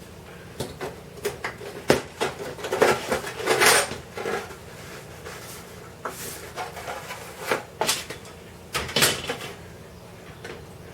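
Hands and tools working on a clock case: irregular clicks, taps and scrapes of small hard parts, with busier clusters about three seconds in and again about nine seconds in.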